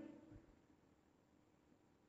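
Near silence: faint room tone between narrated sentences, with the tail of a spoken word fading out at the very start.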